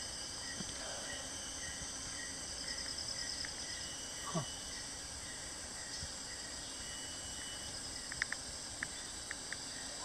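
Tropical rainforest insects buzzing steadily, with a short chirp repeating every half second or so. About four seconds in a single call slides down in pitch, and several sharp ticks come near the end.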